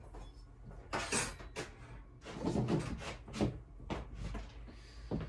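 A string of light knocks and clatters, about a dozen unevenly spaced, from tools and small wiring parts being picked up and put down on a workbench.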